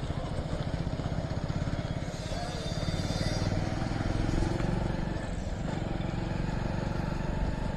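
Motorcycle engine running as the bike is ridden along the road, its note dipping briefly about five and a half seconds in.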